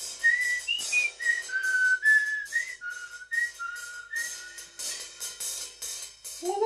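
Film title music: a whistled melody of short, slightly scooped notes over a quick steady beat of cymbal-like ticks, about four a second.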